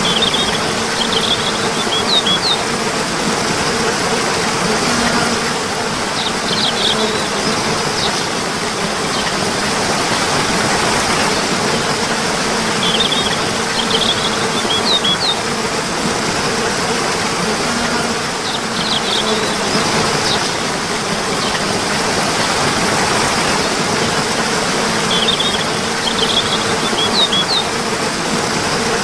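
Steady rush of flowing water, with clusters of short, high bird chirps coming back about every six seconds.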